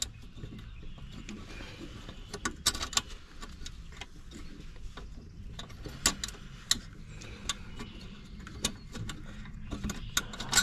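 Small metal nuts and flat washers being handled and threaded by hand onto the battery hold-down studs: scattered light metallic clicks and taps over low handling noise.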